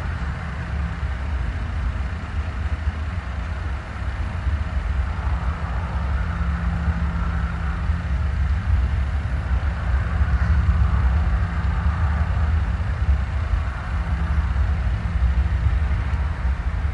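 Steady low roar from the sky, with a droning engine-like hum under it, growing a little louder through the middle; the roaring noise heard from the unidentified lights overhead, most likely aircraft.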